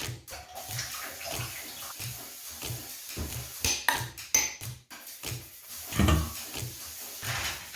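Water splashing and sloshing in a tub, with soft knocks about twice a second, a few clinks around the middle and a louder splash about six seconds in.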